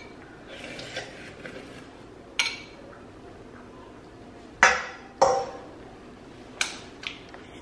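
Metal spoon clinking against a ceramic bowl, four or five short separate clinks with a brief ring, the loudest a little past halfway.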